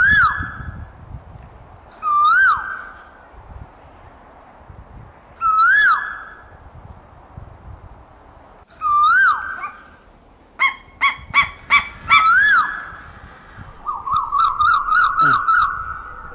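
Asian koel calling: five loud single swooping calls, each rising then dropping, spaced about three seconds apart. Around the fourth call comes a quick run of five short notes, and near the end a fast bubbling series of notes.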